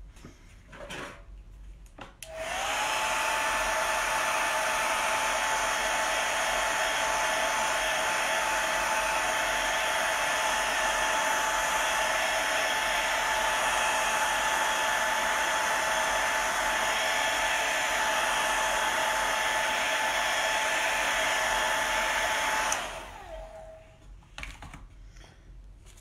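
Handheld hair dryer switched on about two seconds in, blowing steadily with a whine that rises briefly as the motor spins up, then switched off near the end, the whine falling away as it winds down.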